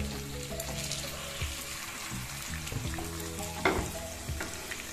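Masala-coated fish slices shallow-frying in hot oil in a nonstick pan: steady sizzling with fine crackles. There is one louder burst near the end as another piece is slid into the oil.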